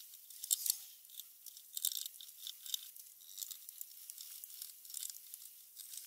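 Paintbrush bristles swishing and scratching across a primed wooden dresser panel as black paint is brushed on, in a string of faint, irregular strokes.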